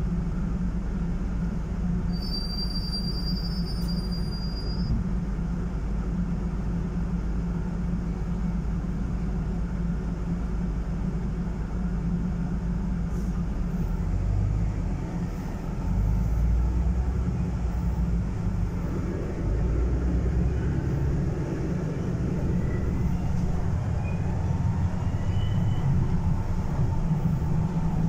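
Inside a Van Hool NEW AG300 articulated city bus under way: steady engine drone and road rumble. The rumble grows heavier and louder from about halfway through. A brief faint high whine comes about two seconds in.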